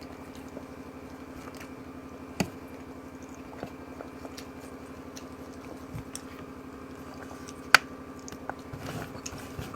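Close-up mouth sounds of a person eating fish stewed in coconut milk: wet chewing and biting with scattered small clicks, over a steady low hum. One sharp click stands out about eight seconds in.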